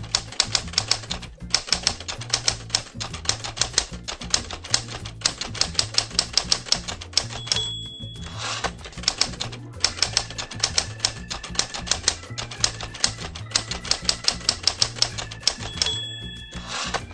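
Background music built on fast typewriter-key clacking over a repeating bass line, with a typewriter bell ding twice, about eight seconds apart.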